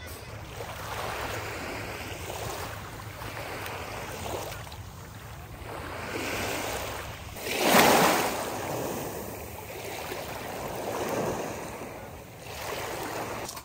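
Sea waves washing onto a beach, the sound swelling and ebbing every second or two, with one louder wave breaking a little past the middle.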